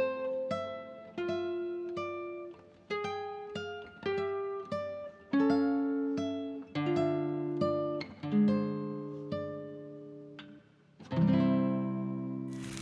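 Background music: a plucked guitar playing a melody of single notes and chords, each note ringing and fading away.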